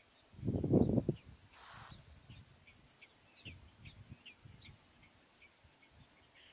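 Outdoor ambience with faint, short, high bird chirps repeating several times a second. A low rumble of wind on the microphone comes just under a second in, and a brief hiss comes near two seconds.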